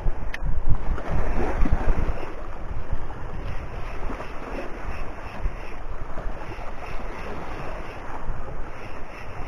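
Wind buffeting the microphone over the sea, with waves washing below, and one brief sharp click about half a second in.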